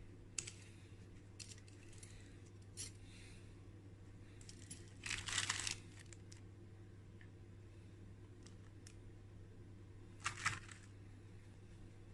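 Scattered light clicks and two short metallic rattles, like small metal objects being handled, over a faint steady low hum.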